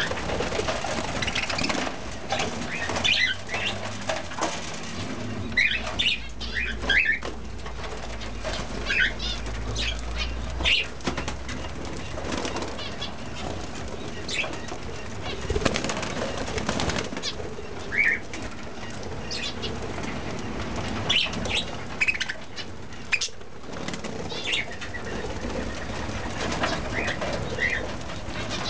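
A flock of cage birds, mainly budgerigars, chattering with many scattered short high chirps, and wings fluttering as birds flit about.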